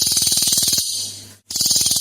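Cililin songbird giving its rapid, machine-gun-like rattling call (the 'tembakan' or 'shot'), twice: one burst of about a second at the start and another beginning about one and a half seconds in.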